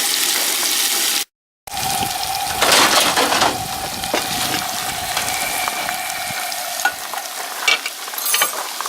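Pike pieces sizzling as they fry in hot bacon grease in a pan, with occasional stirring noises. The sizzle drops out for a moment about a second in, then carries on.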